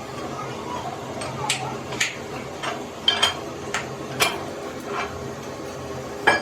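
Light metallic clinks and taps, about a dozen at irregular intervals, over a steady hum. The loudest comes near the end.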